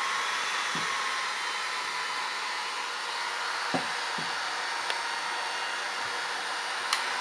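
A 600 W portable electric blower/vacuum runs steadily with a whooshing hiss of air. A few light knocks sound over it, with a sharp click near the end.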